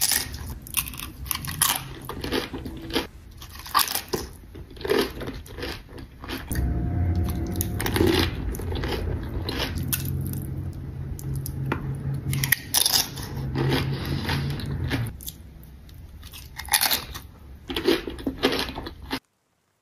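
Close-miked eating: loud, sharp crunches of red tortilla chips loaded with burrito-bowl toppings being bitten, with chewing between bites. A steady low hum sits under the middle stretch, and the sound cuts off abruptly near the end.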